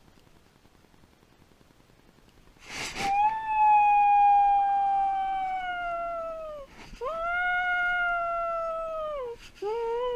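Dog left home alone howling: after a couple of seconds of near silence, a short noisy burst and then long drawn-out howls, the first the loudest, each dropping in pitch at its end, a third beginning near the end.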